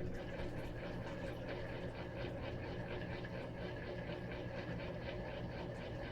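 Electrolux LT13B top-load washing machine running mid-cycle: a steady motor hum with a quick, even pulsing of about four beats a second.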